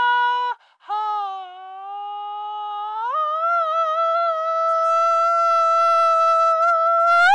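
A high voice holding long, steady sung notes. The first note breaks off about half a second in. A lower note follows and slides up to a higher one about three seconds in, then is held with a slight waver, bends up and cuts off suddenly at the end.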